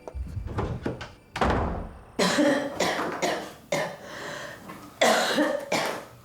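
An elderly woman coughing hard and repeatedly, about six rough coughs in a row: the coughing of someone who is ill.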